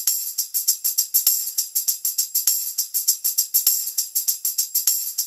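Music: a fast, even jingling shake, about five strokes a second, with a stronger accent every 1.2 seconds.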